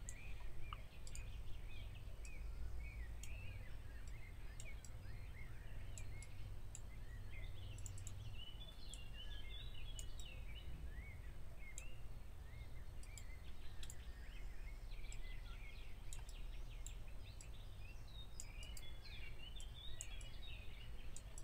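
Faint room noise with a low steady hum, scattered computer-mouse clicks, and quick high chirps in the background that sound like birds, bunching up about halfway through and again near the end.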